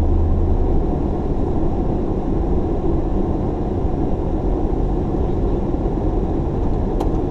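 Car engine running and road rumble heard from inside the cabin as the car drives slowly forward, steady and low throughout, with a faint click near the end.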